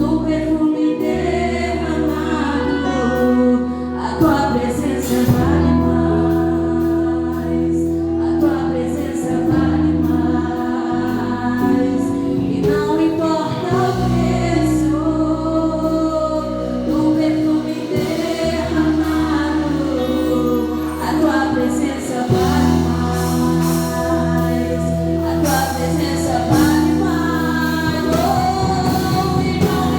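Gospel praise song with a group of voices singing over sustained bass and keyboard chords.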